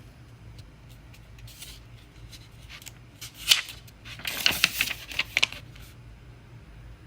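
A paper page of a picture book being turned: a crisp crackle and rustle with small clicks, sharpest a little past the middle.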